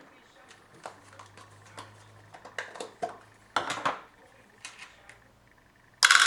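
Metal parts of a PC case clinking and knocking as they are handled: scattered light clicks, a louder clatter about three and a half seconds in, and the loudest knock near the end.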